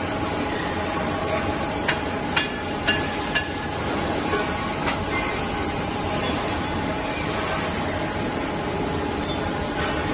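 Gas cylinder CNC threading lathe running: a steady mechanical hum with a faint constant tone, and four sharp knocks about half a second apart, starting about two seconds in.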